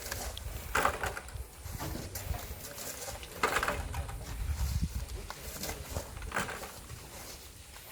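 Shovels scraping and scooping through volcanic sand in several separate strokes, each lasting a fraction of a second and coming a couple of seconds apart, over a low, steady rumble.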